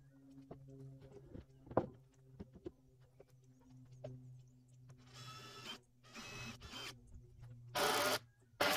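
Scattered taps and knocks, then four short bursts of a power tool at work, each about half a second to a second long, over a steady low hum.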